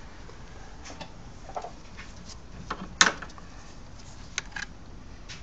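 Scattered light clicks and knocks of hardware being handled under the hood, the sharpest about three seconds in.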